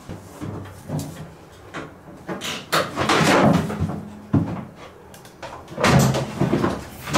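A string of irregular knocks, bumps and scrapes as the cleaned tub of an LG Tromm front-load washing machine is fitted back into the cabinet and its heating element is pushed into the heater housing.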